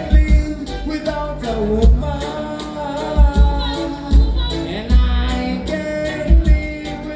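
Live band music with a singing voice carrying the melody over a band, with deep bass-drum thumps about once a second and steady cymbal ticks.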